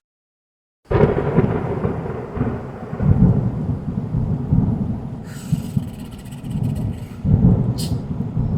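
Thunderstorm: low rolling thunder with rain, starting suddenly about a second in and swelling twice.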